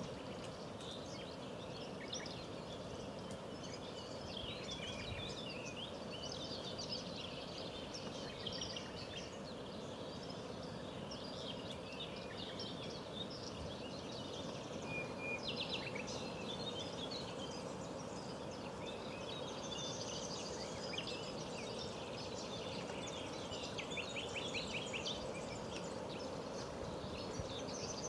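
Many small songbirds chirping and trilling, over a steady low background hiss.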